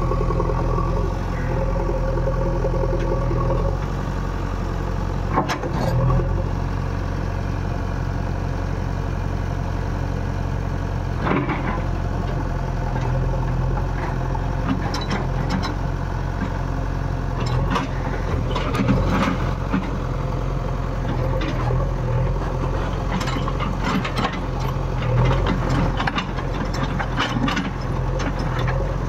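JCB 3DX backhoe loader's diesel engine running steadily at a low, even pitch, with scattered knocks and clatter from the machine's work, thickest in the second half.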